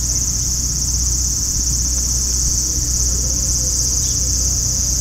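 A chorus of cicadas in summer trees: a steady, high buzz with a fast pulsing texture, over a steady low rumble.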